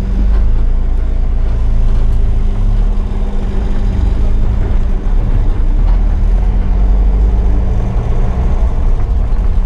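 Safari vehicle's engine running steadily: a loud, low drone with a constant hum.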